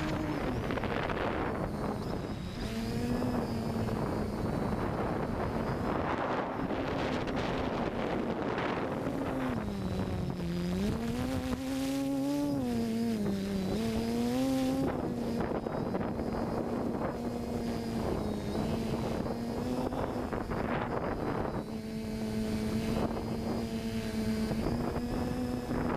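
FPV multirotor drone's electric motors and propellers whining, the pitch gliding up and down with the throttle and wavering most about halfway through, with gusts of wind noise on the onboard microphone.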